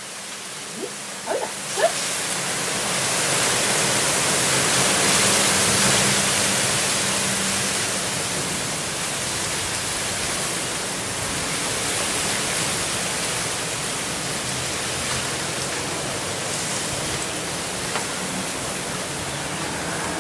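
Wind blowing outdoors, a steady rushing hiss that swells a few seconds in and then eases a little.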